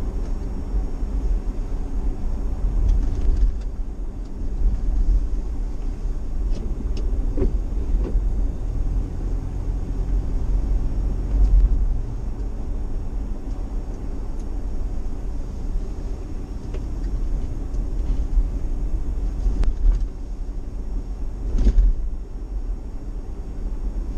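Vehicle driving along a wet road, heard from inside the cabin: a steady low rumble of engine and road noise, with a few brief knocks and rattles from bumps.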